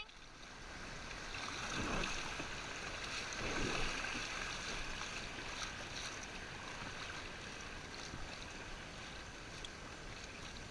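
Rushing river water around a kayak running a choppy riffle, with paddle strokes in the water, muffled through a GoPro waterproof case. The rush grows over the first two seconds and is loudest near two and four seconds in.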